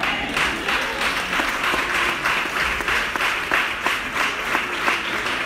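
A church congregation applauding, many hands clapping together in a dense, steady wash of claps.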